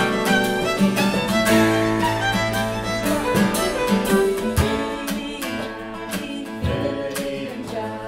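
Fiddle playing a bowed melody over acoustic guitar accompaniment, with a held low note underneath.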